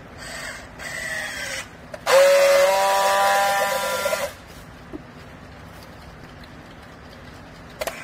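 Clothes baler machine at work: a whine that falls in pitch for about a second and a half, then a louder whine with a strong hiss for about two seconds that cuts off suddenly.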